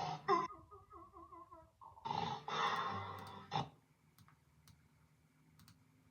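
A person snoring: a rasping breath, a short wavering pitched tone, then two long noisy breaths. After about four seconds it goes quiet except for a few faint clicks.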